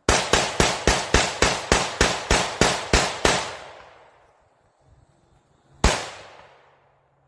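A pistol fires a rapid string of about a dozen shots, roughly four a second, each crack trailing off in an echo. After a pause of about two seconds it fires one more single shot.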